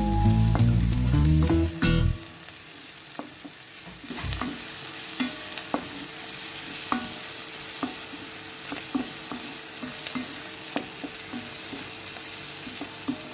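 Background music for about the first two seconds. Then, from about four seconds in, sliced onions and garlic sizzle in oil in a pot while a wooden spoon stirs them, knocking against the pot at a steady pace a little over once a second.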